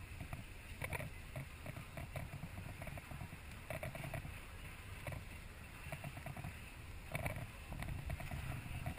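Steady low rumble of a sportfishing boat at sea, its engine and the water around the hull, with scattered light knocks and clicks.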